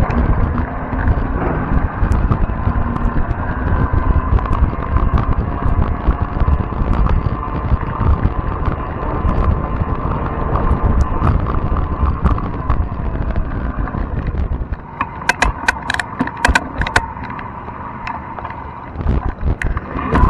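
Fat-tire e-bike on the move: wind buffets the microphone over a steady whine from the bike. About three quarters of the way through comes a quick run of sharp rattling clicks.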